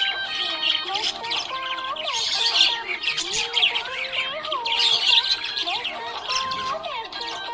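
Budgerigars chirping and squawking in dense, rapid bursts, with busier clusters about two and a half seconds and five seconds in.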